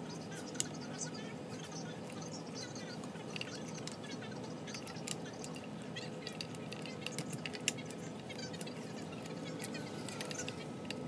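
Scattered light clicks and taps of metal parts as a brushed 48 V golf cart motor's armature is worked into its brush end housing with a pick tool, two of them sharper, about half a second in and near the end; a steady workshop hum underneath.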